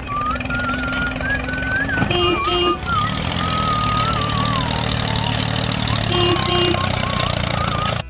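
A vehicle engine running steadily, coming up about three seconds in, with a short double beep twice, over a wavering high whistle-like tone.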